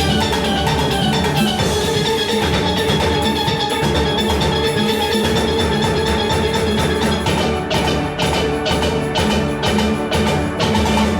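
Steel orchestra playing live: many steel pans ringing out together over a drum kit and percussion engine room. From about two-thirds of the way in, a run of sharp, evenly spaced drum hits stands out.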